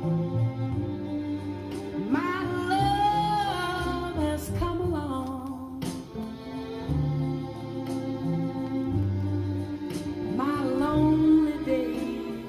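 A vinyl record playing through hi-fi speakers, picked up by a phone microphone: a sung vocal line over bass and other instruments. The voice comes in about two seconds in and again near the end.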